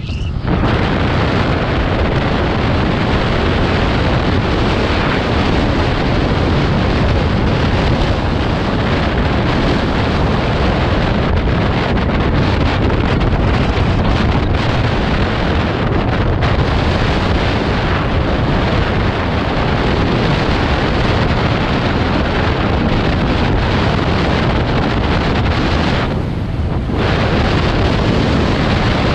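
Steady, loud wind rushing over the microphone while riding at speed, with no pitch or rhythm to it; it eases briefly near the end.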